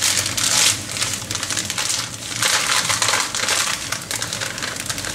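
A large stainless steel pot of water at a rolling boil, bubbling and crackling continuously with uneven swells in loudness.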